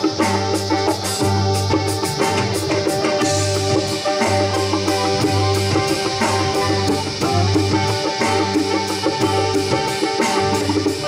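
Live band music: guitar over a bass line and a drum kit keeping a steady beat with regular cymbal strokes.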